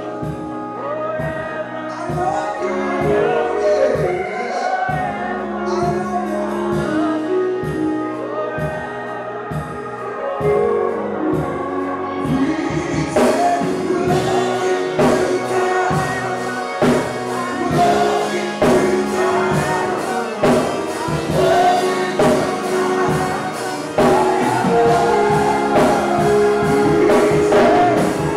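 Live gospel worship music with singing over a band; about halfway through the band fills out with a strong, steady beat.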